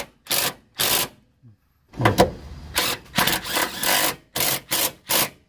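Socket ratchet on a long extension working an engine mount bolt: a string of about ten short, sharp bursts of clicking, with a pause about a second in.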